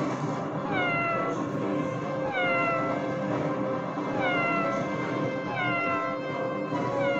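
A cat meowing five times, about every one and a half seconds, each a short meow falling in pitch, over background music.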